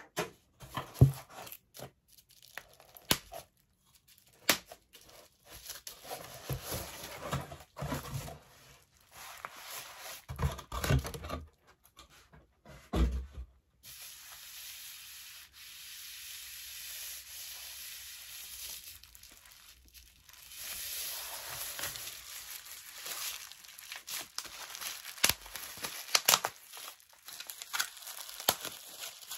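Cardboard shipping box being handled and opened, with sharp knocks and scraping, the loudest about a second in and again around ten to thirteen seconds in. After that, hands rub and pull at plastic bubble wrap, a steady rustling that turns into louder crinkling and crackling for the last third.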